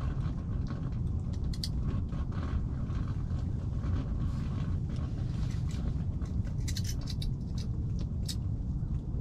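Small clicks and light metallic rattles of a fishing jig and its hooks being handled, a few at a time, over a steady low rumble.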